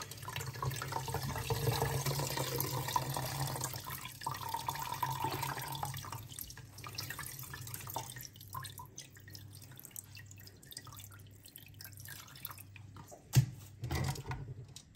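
Water trickling and dripping from a wet cloth bundle of washed minced meat into a strainer and bowl in a stainless-steel sink, louder at first and dying down. A sharp knock near the end.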